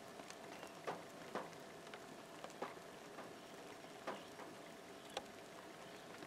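Light rain falling with a soft, steady patter, and about five louder single drops landing close by at irregular intervals.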